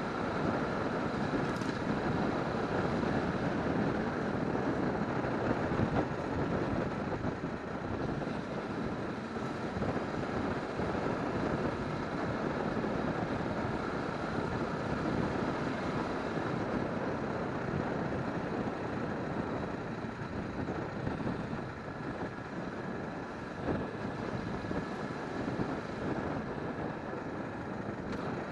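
Motorcycle riding along a street: a steady mix of engine and road noise, holding an even level throughout.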